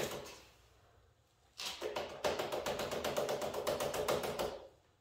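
Fast, even run of small clicks from hand work at a motorcycle handlebar's bar end. It starts about one and a half seconds in and stops shortly before the end.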